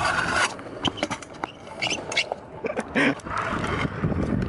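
Stunt scooter grinding along a concrete skatepark ledge, a short scraping hiss in the first half-second, followed by scattered clacks and knocks of the scooter's wheels and deck on concrete.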